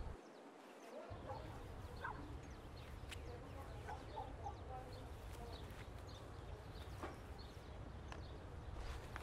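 Faint background ambience: a low steady hum with scattered short, faint bird or fowl calls and a few light clicks. The hum drops out for a moment near the start.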